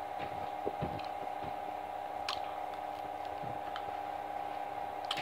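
A person eating mashed potatoes and fried chicken: soft chewing and mouth sounds with a couple of sharp clicks, over a steady hum.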